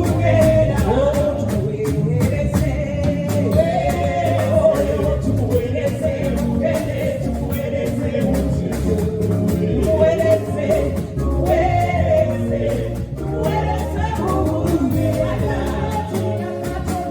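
Live gospel praise and worship music: singers leading a song over a band with a steady drum beat.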